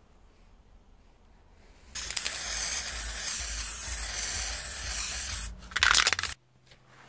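Aerosol spray-paint can hissing steadily for about three and a half seconds, then a short, louder burst near the end.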